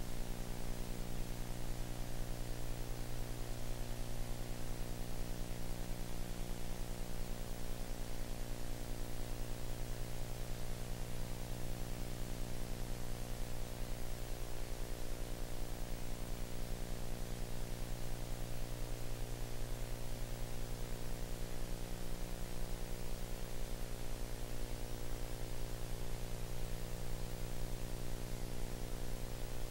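Steady electrical hum and buzz with an even hiss of transfer noise, unchanging throughout, with no sound of the action.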